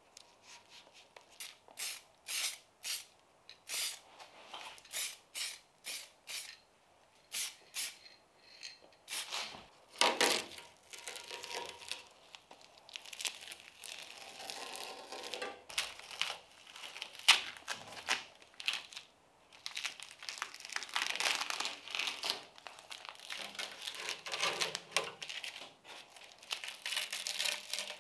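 Blue masking tape pulled off the roll and torn in a quick run of short rasps, then masking paper and tape crinkling in longer stretches as they are pressed and smoothed over bodywork.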